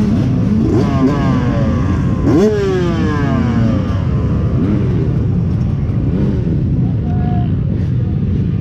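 Several dirt bike engines idling and revving together on a start line, pitches rising and falling against each other over a steady low rumble. One sharp rev about two seconds in is the loudest.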